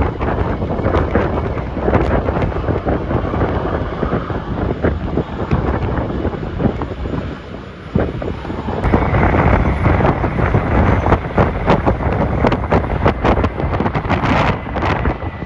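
Strong gusty wind buffeting the microphone, a loud rumbling, crackling rush that surges and eases. A faint steady high whine comes in about nine seconds in.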